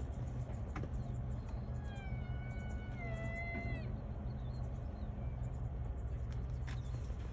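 White rhino calf giving one high-pitched whining call about two seconds in, lasting about two seconds, over a steady low hum.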